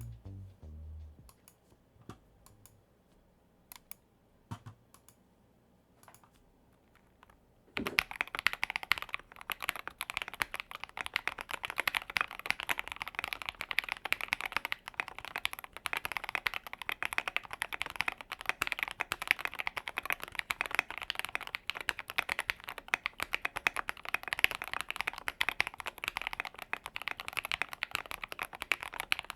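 Typing sound test on a mechanical keyboard fitted with MG-profile ABS double-shot keycaps. There are a few scattered key clicks at first, then continuous fast typing from about eight seconds in.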